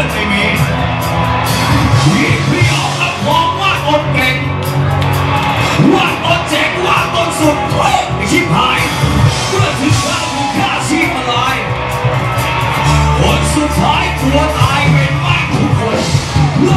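Live rock band, with drums and electric guitar, playing loudly while a male vocalist sings and shouts through a microphone and PA.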